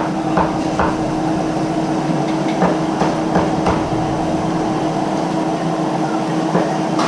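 Steady background hum: a constant low tone under an even noise, with a few faint light clicks and taps.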